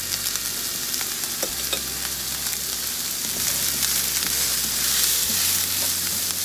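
Chopped onions sizzling in hot coconut oil in a frying pan, a steady crackling hiss with a few light clicks. The sizzle grows louder about halfway through.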